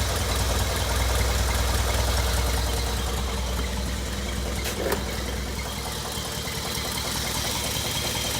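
1964 International Scout 80's four-cylinder engine idling steadily, freshly started on new oil after an oil change. A single short click sounds about five seconds in.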